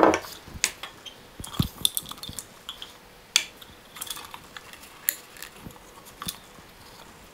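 Scattered light clicks and taps of hands handling a mousetrap car's plastic CD wheel and wooden frame, working a wobbly wheel straight on its axle.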